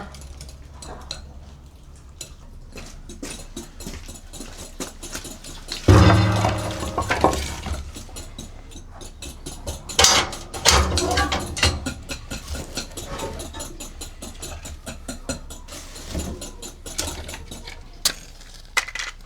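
Metal cookware and utensils clinking and knocking during cooking, with a steady low hum underneath and a couple of louder thumps about six and ten seconds in.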